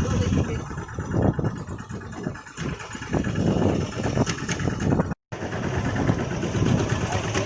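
Fishing boat's engine running with an uneven low rumble.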